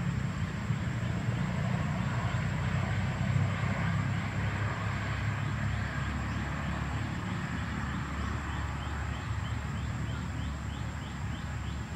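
Outdoor ambience: a steady low rumble, with a short high chirp that starts repeating about halfway through, roughly twice a second.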